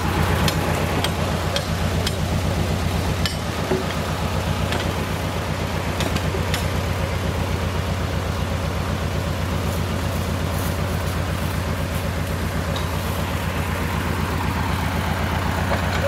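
A tractor's diesel engine idling steadily with an even low pulsing, with a few light knocks over it.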